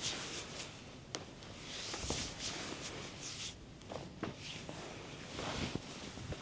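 Hands rubbing over bare skin in massage strokes: repeated soft swishes, each about half a second to a second long, with a few light clicks between them.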